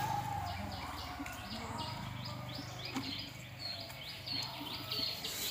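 A small bird chirping over and over, short high chirps about three a second.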